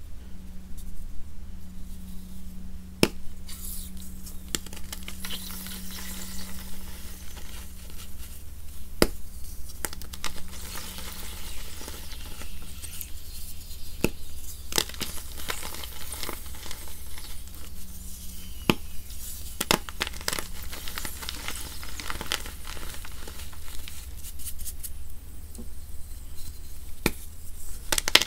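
Charcoal-powdered gym chalk blocks snapped and crumbled by hand into a bowl of water: sharp cracks as the blocks break over a steady crackling of chalk pieces crumbling wet under the fingers.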